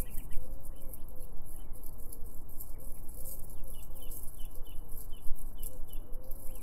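Birds calling: a low arching call repeated about once a second and a higher short chirp about twice a second, over a steady low hum.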